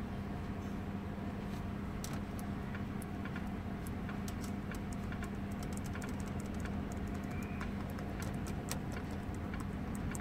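Quick irregular clicks of a fingertip tapping the scroll arrows on a car stereo's touchscreen, over a steady low hum inside the car.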